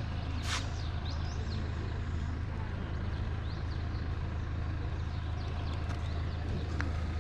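Street traffic noise: a steady low engine hum from vehicles under a general street hiss. There is a sharp click about half a second in, another faint click near the end, and scattered faint high chirps.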